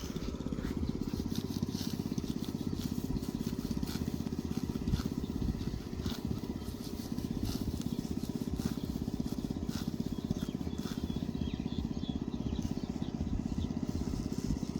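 A small engine running steadily with a fast, even low putter, with scattered light clicks over it.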